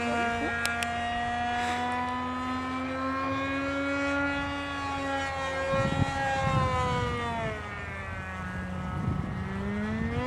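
Radio-controlled model airplane's small motor buzzing high overhead in flight, its pitch sinking slowly, dipping about eight seconds in and rising again near the end as the plane swings past. Wind buffets the microphone a few times in the second half.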